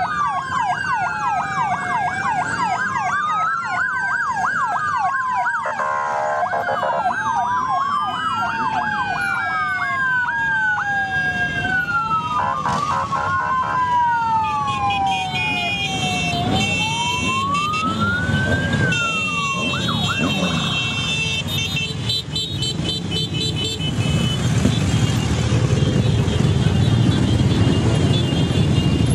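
Several sirens wailing and yelping over one another, their pitch sweeping up and down, as a column of motorcycles rides past with engines running. The sirens stop about two-thirds of the way through, and the motorcycle engine noise grows louder near the end.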